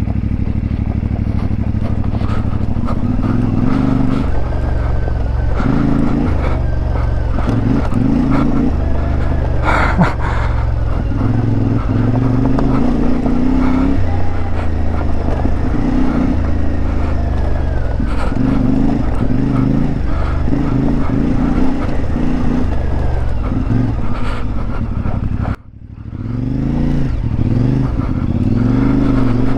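CFMoto 450MT's parallel-twin engine with its 270° crankshaft, running under load, its revs rising and falling over and over as the throttle is worked over rocky ground, with a few knocks. The sound drops out suddenly about 25 seconds in, then picks up again with rising revs.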